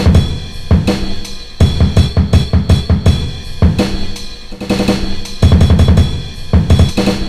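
Music: a drum kit playing a busy rhythm, with bass drum, snare and cymbal hits.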